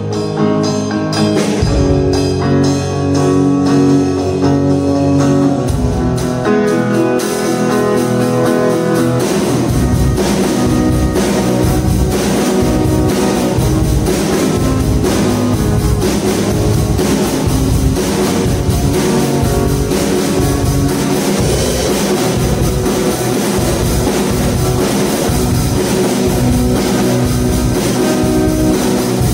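Electric guitar and Tama drum kit jamming a rock-style groove. The guitar plays alone at first, cymbals come in about seven seconds in, and the full kit with kick drum joins a couple of seconds later in a steady beat.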